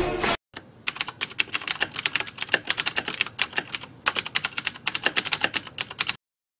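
Music cuts off near the start. A typing sound effect of rapid keyboard clicks follows in two runs, with a short break about four seconds in.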